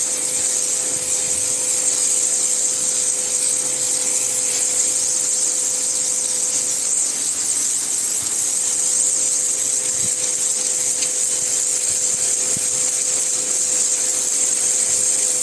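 Pressure washer spraying without a break: a steady, loud high hiss of the water jet with a constant tone running underneath.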